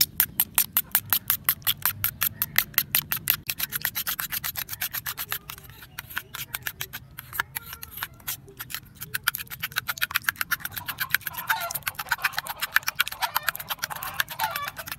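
A metal spoon beats raw eggs and spices in a stainless steel bowl: a fast, even run of metallic clinks as the spoon strikes the bowl.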